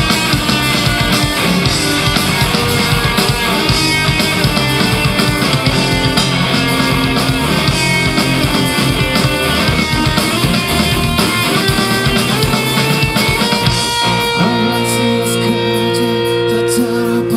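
Live rock band playing an instrumental passage on distorted electric guitars and drum kit. About fourteen seconds in, the busy beat gives way to long held guitar chords.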